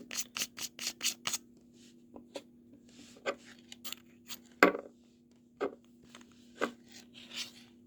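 Handling of a flashlight's tail cap being swapped for a remote pressure switch cap: a quick run of small clicks in the first second and a half, then scattered clicks and rubs as the cap is screwed onto the threads. A faint steady hum runs underneath.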